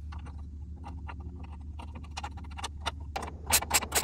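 Small ratchet wrench clicking while tightening the nut on a light pod's mounting bolt. The clicks grow louder and evenly spaced, about five a second, from about three seconds in. Before that there are faint light metal ticks from handling the nut and bolt.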